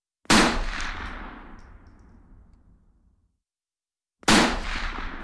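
Two single gunshots about four seconds apart, each a sharp bang that dies away in a long echo over a few seconds.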